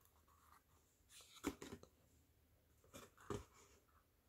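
Faint handling of a Chaumet jewellery gift box: the cardboard outer box opened and the leather-covered ring box taken out, with soft rubbing and a couple of light knocks about one and a half and three and a half seconds in.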